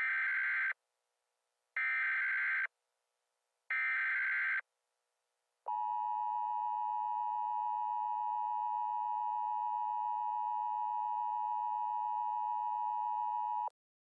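Emergency Alert System tones: three short bursts of the SAME digital header, each just under a second and about a second apart, followed by the EAS two-tone attention signal (853 and 960 Hz together), a steady harsh tone held for about eight seconds that cuts off abruptly.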